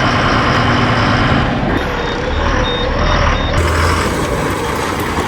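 Truck engine running with a rumble while a reversing beeper sounds a run of short high beeps, about three a second, for a second and a half near the middle.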